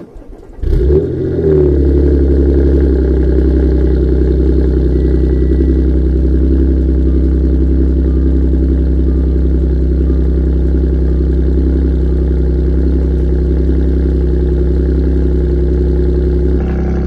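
Audi S4 engine cold-started: brief starter cranking, then it catches about a second in with a short flare and settles into a loud, steady fast idle.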